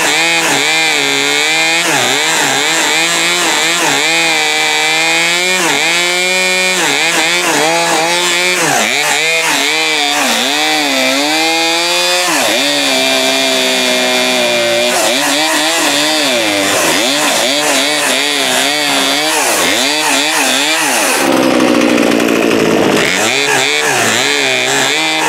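Poulan Pro PP4218A 42cc two-stroke chainsaw engine running while its carburettor mixture screws are tuned, revving up and dropping back again and again. A short stretch of harsher, noisier running comes near the end.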